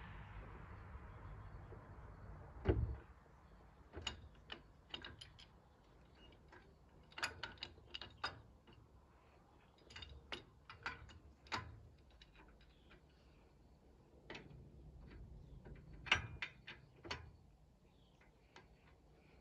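Short irregular runs of sharp metal clicks and clanks from hand tools being worked on the snow plow, with one heavier knock about three seconds in.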